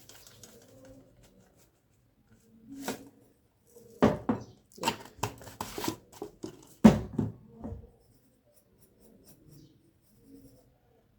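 Kitchen handling noises: a run of a dozen or so short knocks and taps, clustered between about four and eight seconds in, as containers are handled while breadcrumbs are tipped into a dish.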